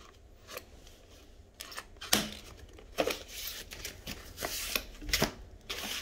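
Scissors snipping plastic cable ties, then foam packing padding rustling and crinkling as it is pulled off a bicycle frame: irregular sharp snips and clicks among short bouts of rustling.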